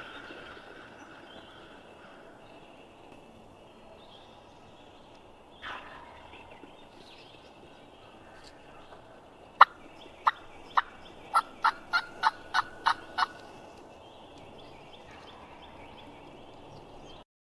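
Wild turkey calling: a faint gobble at the start and another about six seconds in, then, about ten seconds in, a loud, evenly spaced run of about nine sharp turkey yelps.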